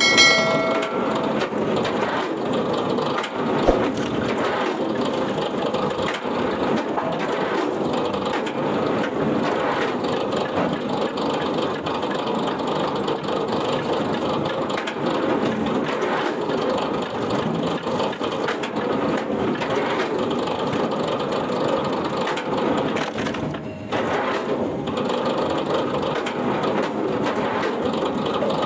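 Wood-processing machinery crushing and grinding wood in a steady, noisy din, with a short metallic ring at the very start and a single knock about four seconds in.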